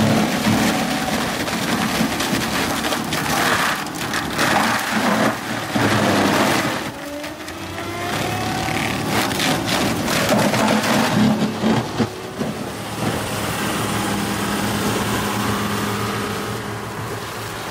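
Tractor-driven Seppi Miniforst shredder running with its rotor chewing through wooden blocks and a palm-trunk section, a steady mechanical noise broken by many sharp knocks and cracks of wood being smashed. Its loudness dips and the pitch climbs back about seven seconds in, and it runs more evenly near the end.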